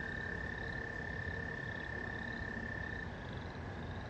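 Pond frogs calling: one long, steady trill that weakens about three seconds in, with short rising peeps repeating over it about once or twice a second.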